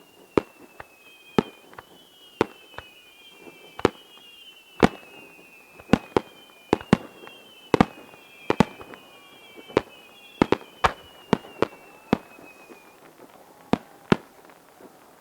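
Aerial fireworks going off in rapid, irregular succession, about two dozen sharp bangs. Over them run several overlapping high whistles, each falling slowly in pitch; these fade out a couple of seconds before the end.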